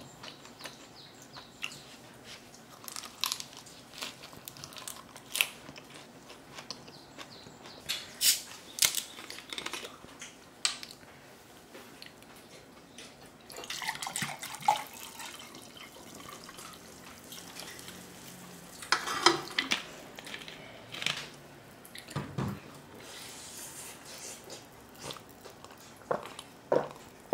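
Sparkling water poured from a bottle into a glass about halfway through, among scattered clicks and mouth sounds of eating at the table. Near the end, a run of gulps as the water is drunk.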